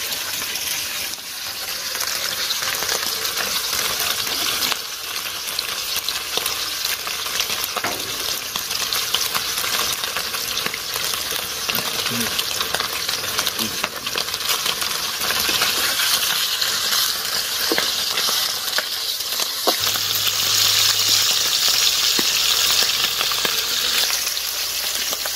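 Pieces of freshly caught hilsa fish deep-frying in oil in a pan over a clay stove: a steady sizzling hiss with scattered small pops of spitting oil.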